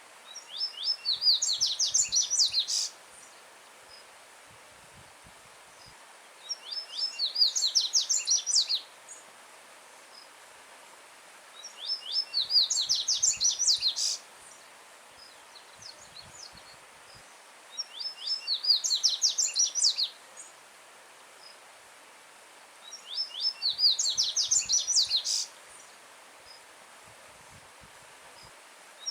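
A yellow-bellied seedeater (coleiro-baiano) sings five loud phrases, each a rapid run of high, clear notes lasting about two seconds, repeated about every five and a half seconds. A stream runs steadily over stones underneath.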